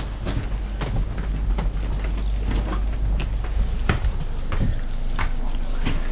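Inside a double-decker passenger train carriage: a steady low rumble with scattered knocks and clatters.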